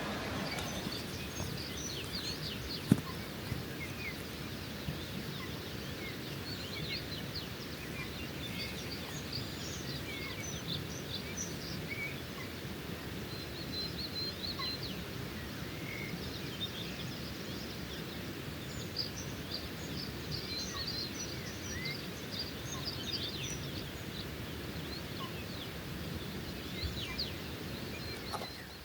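Several small songbirds singing and chirping in mountain forest, short overlapping trills and chirps throughout over a steady low background hiss. A single sharp click about three seconds in.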